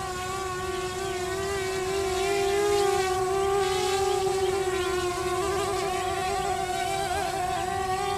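Twin 2204 2300KV brushless motors with 6x4.5 two-blade props whining steadily on a small RC flying wing. The whine grows louder over the first few seconds, then holds with a wavering, beating pulse from the two props running at slightly different speeds.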